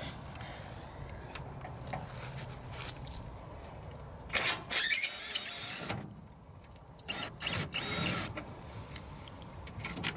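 Cordless drill running in two short spells, the first and louder about four and a half seconds in, the second about two and a half seconds later.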